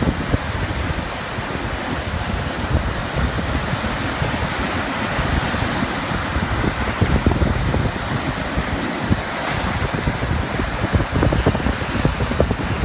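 Small ocean waves lapping on a beach shore, a steady wash of surf with wind buffeting the microphone.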